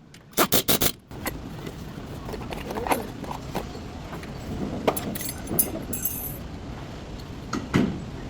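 Metal tools and parts clinking and knocking during brake work: four sharp knocks in quick succession just under a second in, then scattered lighter clinks.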